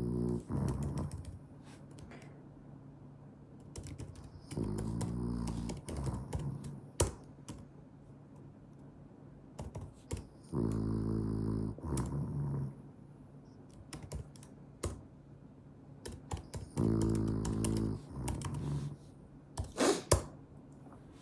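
French bulldog snoring in its sleep: four long snores, about one every six seconds. Sharp clicks come between the snores, and a brief louder noise comes near the end.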